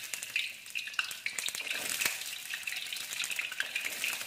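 Whole peeled garlic cloves frying in hot oil in a wok: a steady sizzle with a dense crackle of small pops as more cloves are dropped in by hand.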